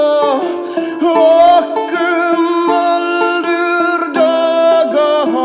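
Background music: a steady rhythm of plucked notes under a held melody that slides between notes.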